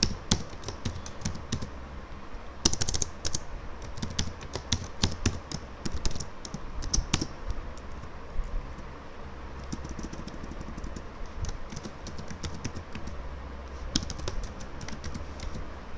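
Typing on a computer keyboard: irregular key clicks in short quick runs with pauses between them.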